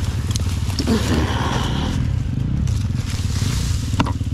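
Husqvarna FE350 dirt bike's four-stroke single-cylinder engine running at low, steady revs, with a few sharp clicks and knocks from the bike.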